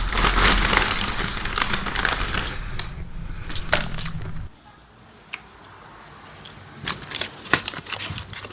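Crackling, crunching noise dense with sharp clicks, which cuts off abruptly about halfway through to a quieter run of scattered clicks and snaps.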